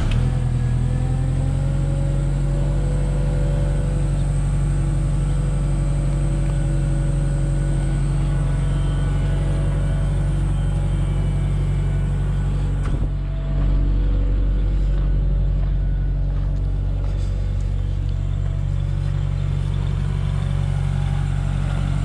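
Genie S-60 boom lift's engine running steadily just after catching on the start. It runs rough, which the mechanic puts down to starting fluid that was sprayed into it.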